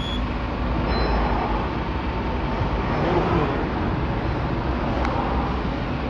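A steady low engine rumble, with a short sharp click about five seconds in.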